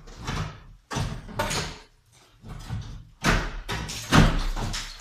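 Chimney cladding being pulled and broken away by hand: a series of rough scraping and cracking noises, about six in a row, the loudest about four seconds in.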